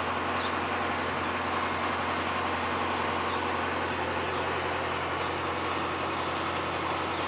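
Steady machine hum, with a few faint short high chirps.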